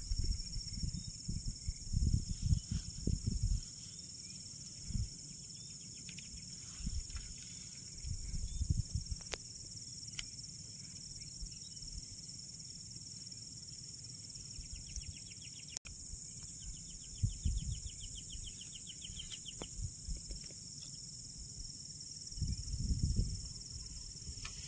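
Insects trilling in a steady, high-pitched chorus with a fine pulsing beat, joined briefly by a lower, faster trill about two-thirds of the way through. Low rumbles and bumps come and go several times underneath.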